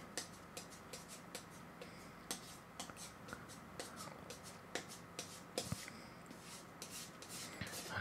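Palette knife mixing oil paint on a wooden palette: faint, irregular scrapes and small clicks of the blade on the board.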